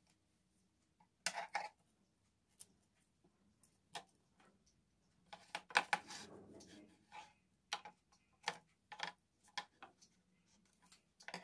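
Faint scattered clicks and taps of hands pressing decorative paper tape onto a cardboard planner, with a denser run of clicks and rustle about six seconds in as scissors cut the tape.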